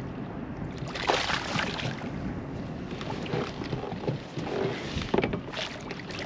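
Water splashing beside a kayak as a hooked fish is played to the side and netted, with wind on the microphone; the loudest splashing comes about a second in and again near the end.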